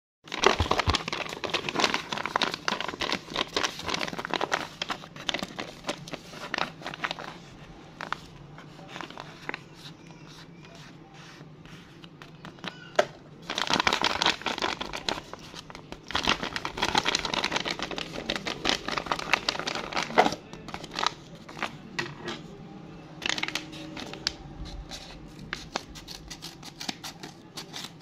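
A crumpled paper blind bag wrapped in clear tape crinkling and crackling as hands handle and squeeze it, in several bursts with quieter pauses between.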